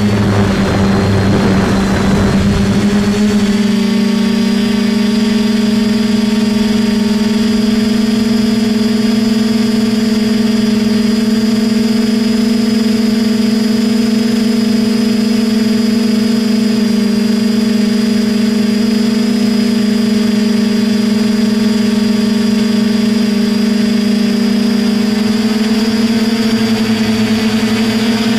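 DJI F450 quadcopter's motors and propellers humming steadily at one pitch, heard through the camera mounted on the frame, with a rush of air noise over the first few seconds.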